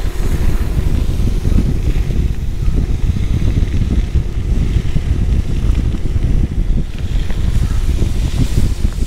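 Wind buffeting a GoPro's microphone as a gravel bike is ridden at speed: a steady, heavy low rumble that flutters rapidly, with the tyres' noise on the gravel road underneath.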